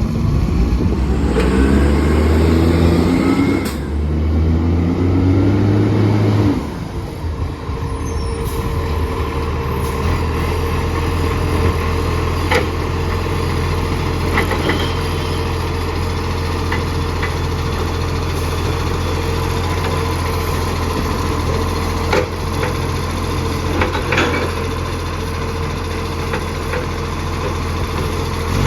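Recycling garbage truck's diesel engine with an exhaust leak. It revs up twice in the first several seconds, then settles to a steady run, with a few short knocks or clanks along the way.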